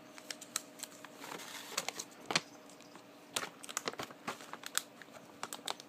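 Treat bag crinkling in the hand as dog treats are handled: irregular sharp crackles scattered throughout, over a faint steady hum.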